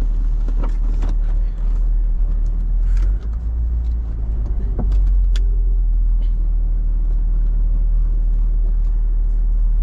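Road and engine noise inside a moving car: a steady low rumble, with a few light clicks here and there.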